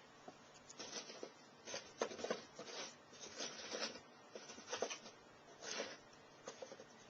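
Irregular short bursts of scratchy rustling and crackling as a tarantula grapples with a roach on the enclosure floor.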